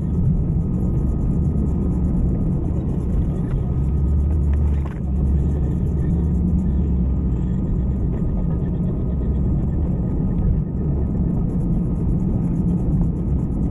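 Front-wheel-drive car driving in reverse up a steep hill road: steady engine and tyre rumble, with a faint steady high whine over it and a brief dip about five seconds in.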